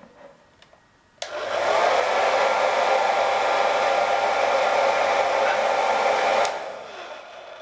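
Hand-held hair dryer switched on a little over a second in, blowing steadily with a thin whine over the rush of air, then switched off about six and a half seconds in and winding down.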